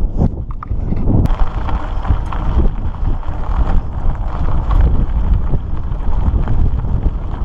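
Mountain bike riding over a dirt trail and gravel: wind buffeting the camera's microphone, with tyre rumble and frequent rattling knocks from the bike over the rough ground.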